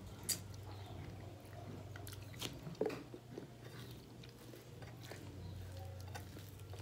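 A person eating by hand, chewing a mouthful of chicken and beans, with soft mouth and food-handling noises and a few short sharp clicks, one about a third of a second in and a couple near the middle. A low steady hum runs underneath.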